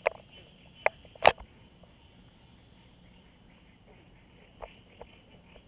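A few sharp clicks and taps from a hand handling the action camera mounted at the swing's rope rigging, the loudest in the first second and a half and two faint ones near the end. Between them there is only a faint steady high hiss.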